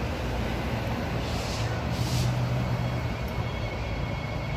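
Transperth electric multiple-unit train moving along the platform, with a steady low motor hum that comes in about a second in and a brief hiss partway through.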